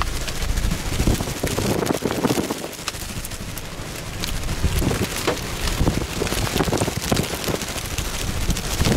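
Heavy wind-driven rain from a tornadic thunderstorm, with many sharp drops pattering on the car and wind gusts rumbling on the microphone.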